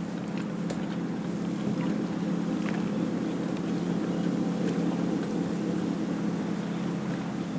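Boat's outboard motor running steadily at low trolling speed, a constant low drone with a few faint ticks over it.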